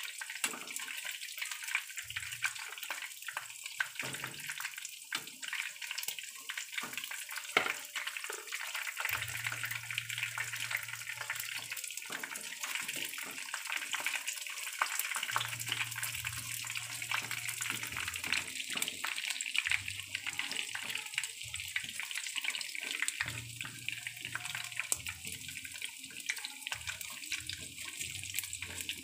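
Batter-coated chicken pieces frying in hot oil in a pan: a steady sizzle thick with fine crackling.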